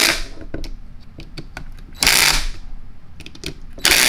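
DeWalt cordless drill/driver tightening screws, its adjustable clutch slipping and ratcheting in three short bursts about two seconds apart. This is the clutch letting off at its set torque so the screws are not overtightened, not the screws stripping.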